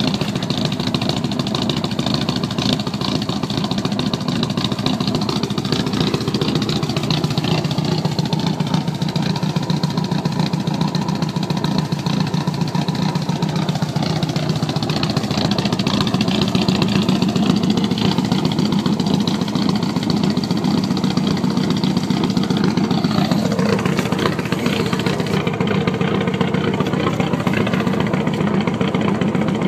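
1992 Volvo 245's engine running through a short straight-through exhaust pipe, the "bus pipe". The engine speed rises and falls slowly a couple of times.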